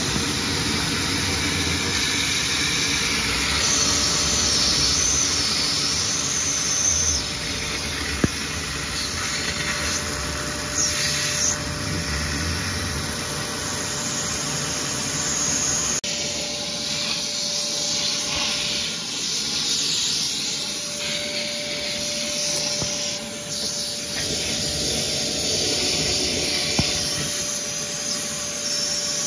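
Shop vac running steadily, sucking up the water that drains out of a front-loading washer's open drain pump filter housing. A steady whine joins about halfway through, and the noise cuts off suddenly at the end.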